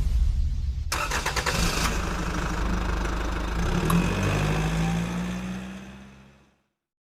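Tour bus engine running, with a clattering stretch about a second in, then revving up in pitch before fading out about six seconds in.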